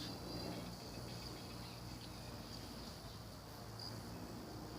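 Quiet outdoor background: a faint, steady high-pitched whine over low, even background noise, with no distinct events.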